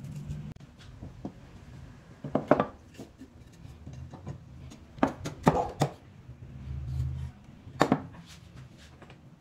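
Wood knocking on wood as the pieces of a mortise-and-tenon joint are fitted together and set down on a wooden workbench: about six sharp knocks, in three groups a couple of seconds apart.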